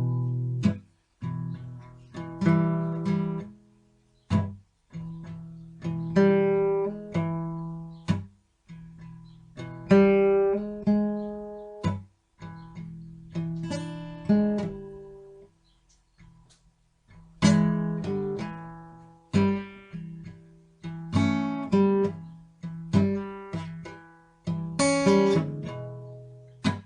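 Background music: acoustic guitar playing plucked notes and strummed chords in short phrases with brief pauses between them.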